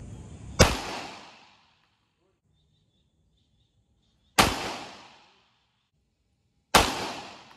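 Three shots from a .40-caliber pistol, the second about four seconds after the first and the third about two and a half seconds later. Each is a sharp crack with a short echoing tail.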